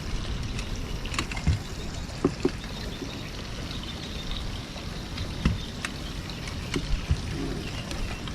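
Steady outdoor noise with a low rumble of wind on the microphone, broken by a handful of short light knocks and clicks, the loudest about two seconds in and again about five and a half seconds in.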